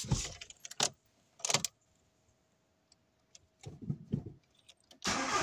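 A few light metallic clicks and rattles, then about five seconds in the VW Golf 4's 1.9 diesel engine suddenly starts cranking into life once a loose battery terminal has been dealt with.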